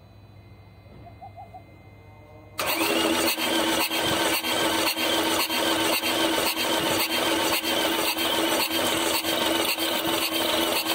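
Diesel engine cranking on its starter motor, with no firing. About two and a half seconds in it starts: an even chug of a little over two pulses a second over a steady starter whine. A compression gauge is on the second cylinder, which only reaches about 100 psi, low for a diesel.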